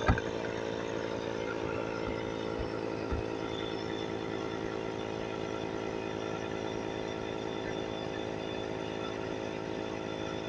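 Hyper Tough 12-volt portable tire inflator's small compressor running steadily with an even buzzing drone, pumping air into a Segway S Plus tire.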